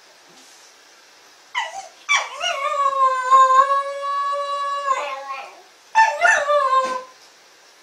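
Shetland Sheepdog howling: a short yelp about a second and a half in, then one long howl held on a steady pitch for about three seconds, then a shorter howl near the end that falls slightly as it dies away.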